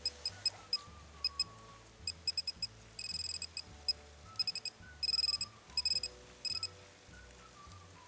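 Handheld metal-detecting pinpointer beeping in quick clusters of high electronic pips as it is probed through loose soil. The pips come faster, running into near-steady tones about three and five seconds in, a sign that it is right on a buried metal target, here an arrowhead. Soft background music with a low bass line plays underneath.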